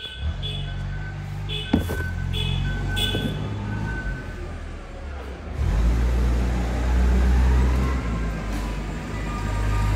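A forklift's engine running, a steady low rumble that grows much louder about six seconds in, its pitch rising a little.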